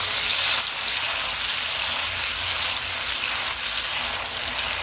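Diced tomatoes sizzling steadily in hot oil as they are stir-fried with fried scallions.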